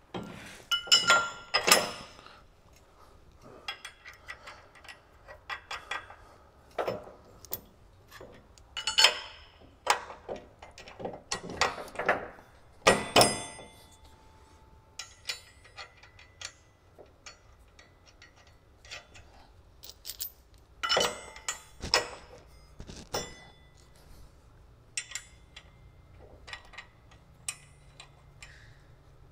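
A tracked slope mower's drive sprocket being fitted onto its hub by hand, its bolts and nuts set in place: irregular clinks, clicks and knocks of parts and hardware, with a few louder knocks.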